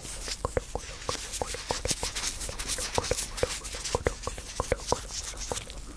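White rubber gloves rubbing and flexing on hands moving close to the microphone: a continuous rustling with frequent small clicks and snaps of the rubber.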